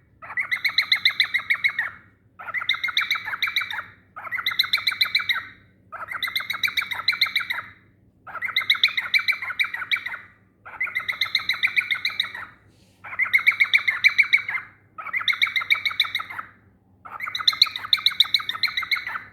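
Pet cockatiel singing in repeated bursts of rapid chirping chatter, about nine bouts each lasting under two seconds with short pauses between.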